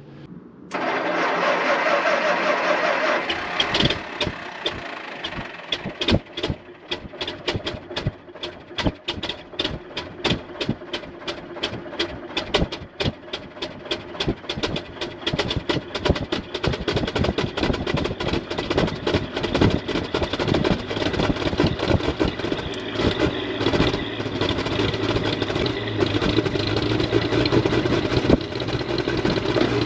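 WWII half-track's gasoline straight-six being cranked for a couple of seconds, then catching and running unevenly with irregular firing, the beats growing faster and steadier through the second half into a rough idle. The carburetor is flooding, which the owner puts down to a float stuck down letting the bowl overflow.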